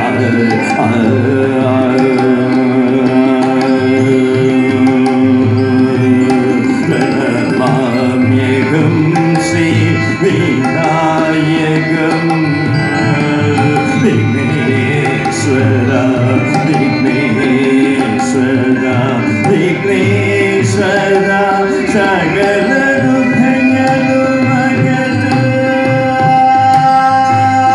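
Man singing a Carnatic-style song into a microphone over a steady drone, with percussion accompaniment.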